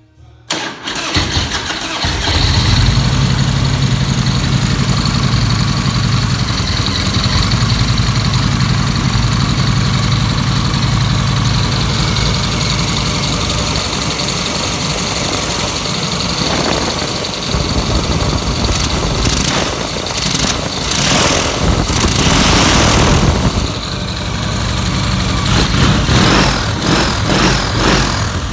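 Harley-Davidson Twin Cam 88 V-twin with a ProCharger supercharger starting for the first time, catching within the first second, then running steadily. It is revved up a few times in the second half.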